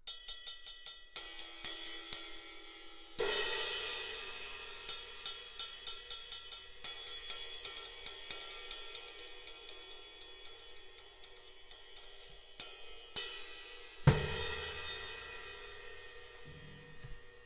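Paiste 2002 20-inch ride cymbal struck repeatedly with a stick, about four strokes a second, building a shimmering wash. Two harder accented hits ring out, one about three seconds in and a heavier one near the end.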